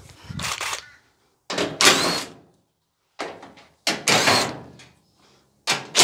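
Cordless impact driver backing screws out of a clothes dryer's sheet-metal back panel, in five short bursts of rattling hammering.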